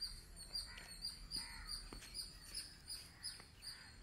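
Birds chirping faintly: a rapid string of short, high chirps repeating throughout, with a few lower calls mixed in.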